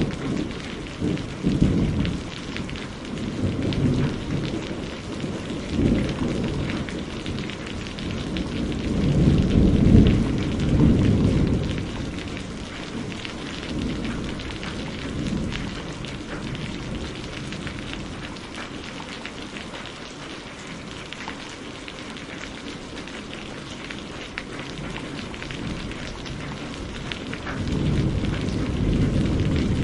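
Thunderstorm: steady rain falling, with deep rolling thunder that swells and fades, loudest about a third of the way in and building again near the end.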